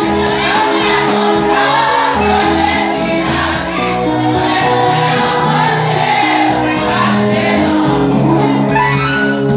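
Church congregation singing a praise song loudly together, with instrumental accompaniment holding steady notes and a changing bass line.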